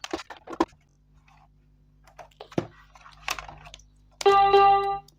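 Plastic clicks and rattles of a toy microphone and its cable being handled and plugged into a small electronic keyboard. Near the end comes a loud, steady electronic tone lasting about a second.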